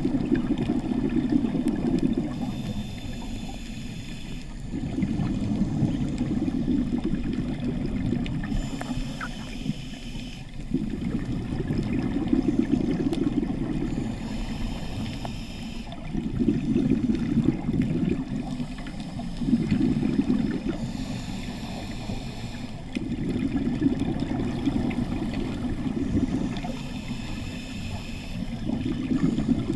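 Scuba diver breathing through a regulator underwater, in a steady cycle about every five seconds: a short hiss on each inhale, then a longer low bubbling rumble as the exhaled air bubbles out.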